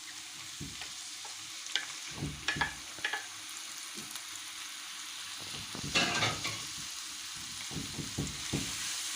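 Onion, pepper and leek sizzling in hot olive oil in a frying pan, with a utensil stirring them and knocking and scraping against the pan several times.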